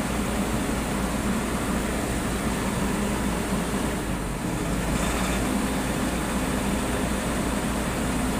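Volvo EC210D crawler excavator's diesel engine running steadily while it works its boom and bucket.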